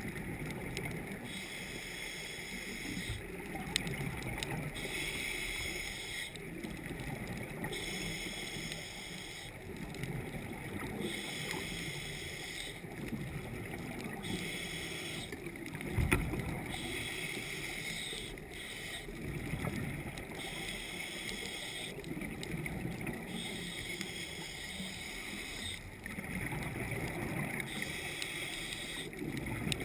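A scuba diver breathing through a regulator underwater: a hiss alternating with a gurgle of bubbles, repeating about every three seconds. There is a single sharp knock about sixteen seconds in.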